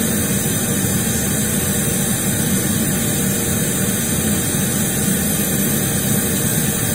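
Steady measurement noise, an even hiss across the whole range, played through a custom line-array speaker box with two 10-inch drivers and a tweeter to measure their combined frequency response. In this setting the 10-inch drivers are wired in reversed polarity to the tweeter, which leaves a cancellation between the two.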